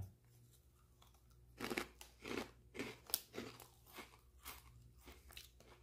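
A man chewing a mouthful of Cheetos Crunchy Buffalo: quiet for about a second and a half, then faint crunches, about three a second, that get weaker toward the end.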